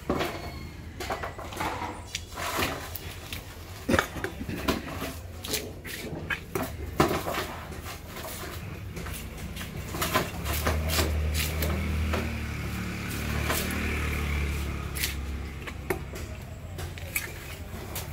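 Heavy fish knife chopping through a skipjack tuna on a wooden block: a series of sharp knocks and thuds at uneven intervals, the loudest about four and seven seconds in. A low steady hum joins in for several seconds in the middle.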